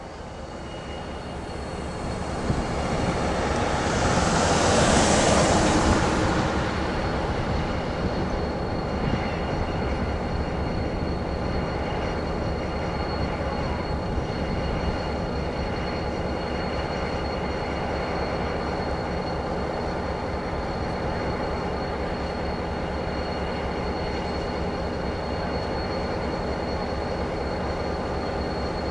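Freight train moving slowly: a steady low rumble of rail equipment with a thin, steady squeal from the wheels. A swell of hiss rises and peaks around five seconds in, then fades.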